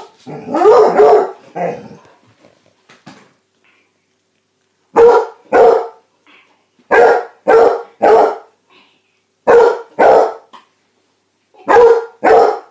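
Basset hound barking: a drawn-out growly bark in the first second or so, then after a short pause about nine sharp, loud barks in pairs and threes, each group a second or two apart.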